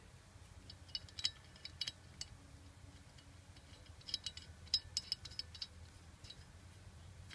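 Faint metallic clicks and ticks as a metal threaded pipe fitting is screwed by hand into the freshly cut 1/4 BSP internal thread of an air compressor pressure switch outlet. The ticks come in small clusters, about a second in and again around four to five seconds in.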